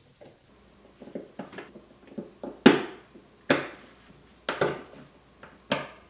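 Small metal clicks and clinks as the retaining ring and quick-change bit sleeve of a Milwaukee M12 impact driver are worked into place with a flat screwdriver: light ticks at first, then four sharper clicks about a second apart.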